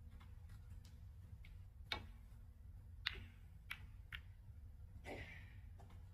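Snooker balls clicking: a handful of sharp knocks about a second apart as the cue ball runs into the pack of reds and the balls hit each other and the cushions.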